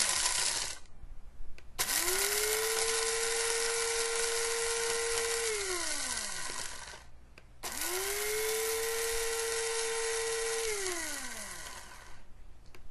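Bodum Bistro electric blade coffee grinder pulsing on whole coffee beans. Twice the motor spins up to a steady whine, with the beans rattling and crushing against the blade, runs about three to four seconds, then coasts down with a falling pitch. A third pulse starts right at the end.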